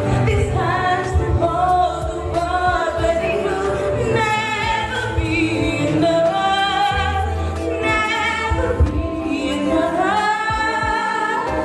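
A woman singing into a microphone over amplified backing music, with other voices joining in like a small choir.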